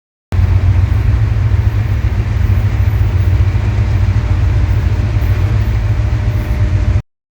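Train running, a loud, steady low rumble with a faint steady hum over it. It starts abruptly just after the beginning and is cut off abruptly near the end.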